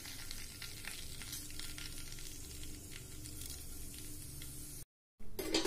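Whole spices (cumin seeds, bay leaves and cloves) sizzling and crackling in hot oil in a non-stick pan: the tempering for a kadhi. The sound drops out briefly near the end.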